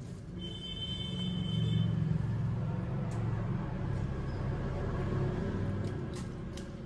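Low rumble of a passing road vehicle, swelling in the first couple of seconds and slowly fading, with a brief high steady tone near the start.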